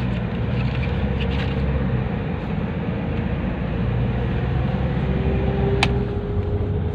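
Nissan NV350 van being driven: steady engine and road noise, with a faint steady whine that rises slightly near the end and a single sharp click about six seconds in.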